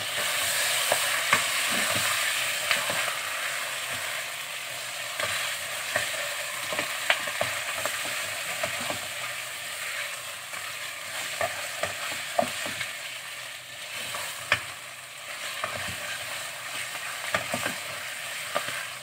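Chunks of raw meat sizzling in a pot of fried spice masala as they are stirred with a spatula, with frequent knocks and scrapes of the spatula against the pot. The sizzle is loudest in the first few seconds.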